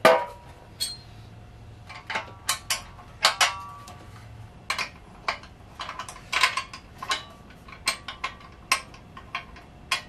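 Metal clinks and knocks of a wrench and bolts on a steel sewing-machine stand as it is bolted together: irregular sharp clicks, some ringing briefly.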